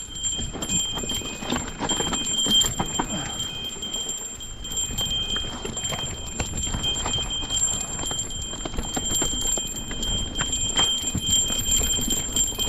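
Irregular knocks, clicks and rustling as a mountain bike is pushed up a trail on foot, with faint steady high-pitched tones above.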